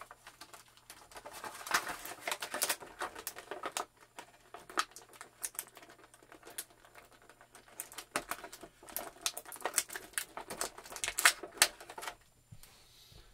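Plastic packaging of a wrestling action figure being handled and pulled open: irregular crinkling and crackling with many sharp clicks, in two busy spells, stopping about twelve seconds in.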